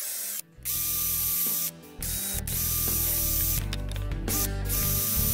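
Scroll saw running and cutting wood, a steady rattling buzz, broken by brief drops about half a second and just under two seconds in.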